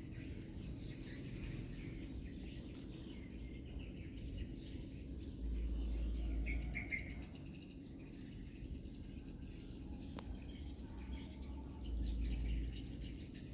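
Outdoor background of birds and insects chirping faintly, with two low rumbles, about five seconds and twelve seconds in, that are the loudest sounds.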